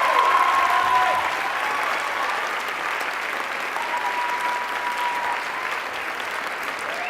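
Audience applauding, with a few cheers over the clapping.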